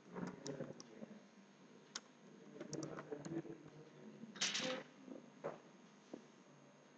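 Faint typing on a computer keyboard: scattered key clicks, with a louder burst of noise about four and a half seconds in. A single mouse click comes near the end.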